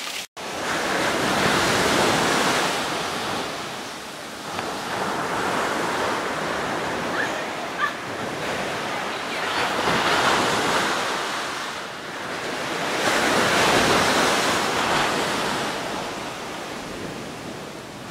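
Ocean surf breaking and washing up a sandy beach, coming in slow swells about every four seconds.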